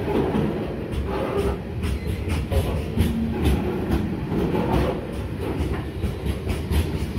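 Freight train of covered hopper wagons rolling past close by: a steady low rumble of wheels on the rails, with repeated sharp clacks.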